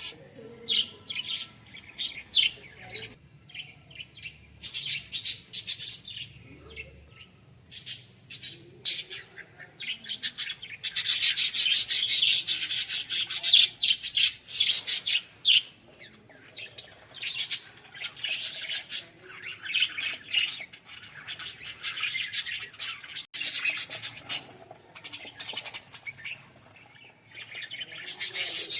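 Pet budgerigars chirping and chattering in bursts of quick, high notes, with the loudest, densest chatter a little before halfway.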